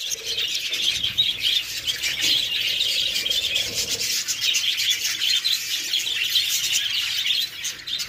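Many budgerigars chirping and chattering together in a continuous, dense twittering.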